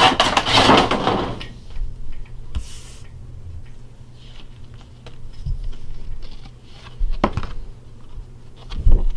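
Handling noise from a trading-card collection box being opened close to the microphone: a burst of rustling at the start, a short hiss a few seconds in, and two knocks near the end.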